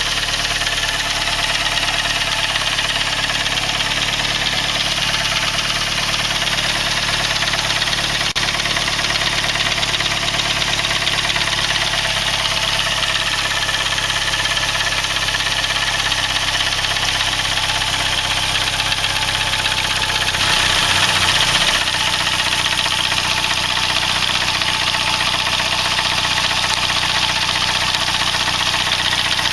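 Saab 9-3's B205E 2.0-litre turbocharged four-cylinder engine idling steadily, rising briefly a little about two-thirds of the way through.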